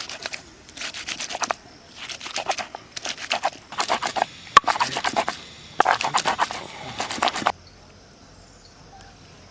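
Rapid rasping scraping strokes in bursts of about a second each, separated by short pauses, stopping abruptly about three quarters of the way through.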